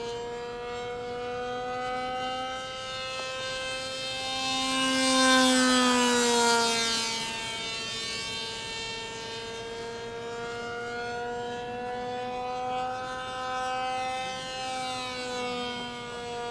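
Electric motor and propeller of a foamboard RC delta plane whining steadily in fast flight. About five seconds in it grows louder and then drops in pitch as the plane passes, before settling back to a steady whine.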